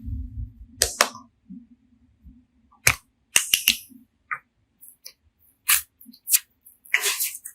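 Slime being handled by hand, giving a series of short, sharp clicks and snaps at irregular intervals over a faint low hum.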